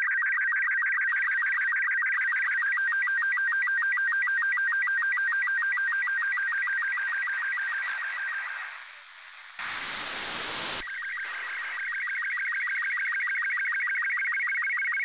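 SSTV picture signal from the LAPAN-A2 (IO-86) satellite heard through an FM receiver: a fast, regular warble of beeping tones repeating several times a second as an image is sent. About nine seconds in, the signal fades and gives way to about a second of static, then the warbling tones come back.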